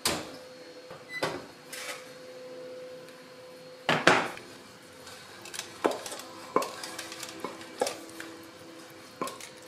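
Kitchen handling noises: a clunk as the oven door opens, a loud clatter about four seconds in as the ceramic baking dish is taken off the oven rack, then a run of sharp knocks and scrapes as a wooden spatula pushes cooked apple filling out of a metal pot into the dish.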